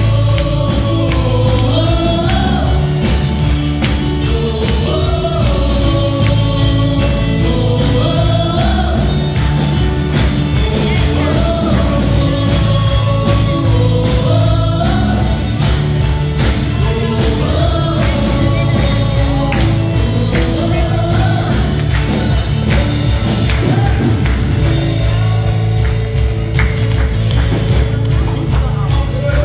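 Live gospel worship song: women's voices leading over a band of acoustic guitar and keyboard with a steady beat.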